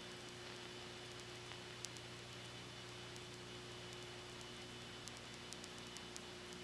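Steady hiss and mains hum of an old recording with no other sound on it, and a few faint clicks, one about two seconds in and several near the end.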